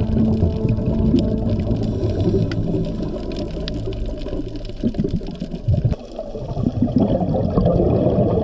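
Scuba regulator exhaust bubbles gurgling and rushing, heard underwater on a waterproof GoPro Hero8, densest in the last second or so.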